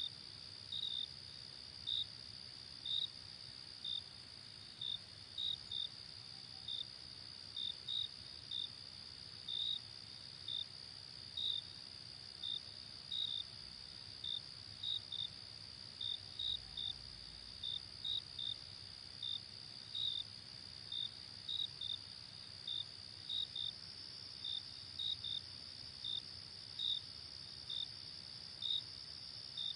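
Crickets chirping at night: short high chirps, one or two a second at an uneven pace, over a steady high-pitched trill.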